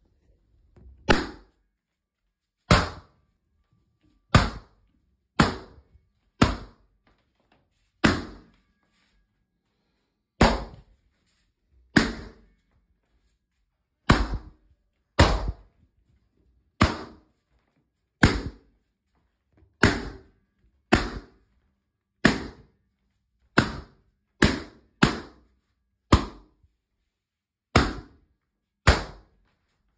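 Large latex balloons bursting one after another: about twenty loud, sharp pops, one every second or two, each with a short ringing tail.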